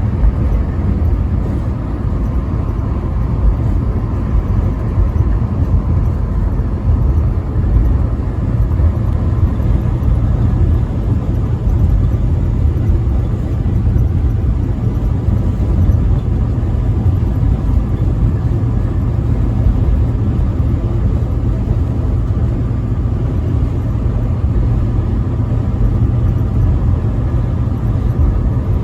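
Semi truck driving at highway speed: a steady low rumble of engine and road noise that holds even throughout.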